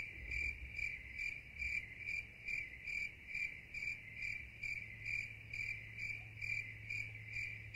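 A cricket chirping faintly in an even rhythm, a little over two short high chirps a second, over a low steady hum.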